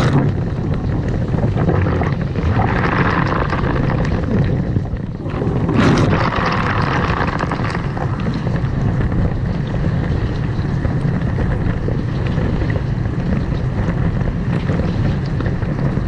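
Water jets spraying and splashing across dishes and racks inside a running dishwasher, over the machine's steady low drone, with louder surges at the start and about six seconds in.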